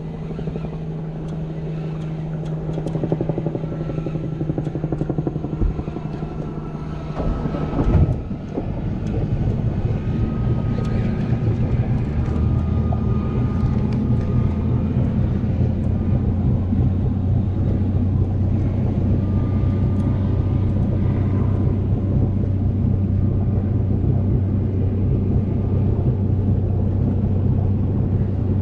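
Boat engine running steadily. About eight seconds in there is a knock, after which the engine note settles lower and louder and drones on.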